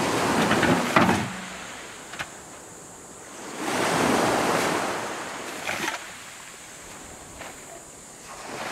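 Small waves breaking and washing up a sand beach, each surge swelling and fading about every four seconds, with a few small knocks in between.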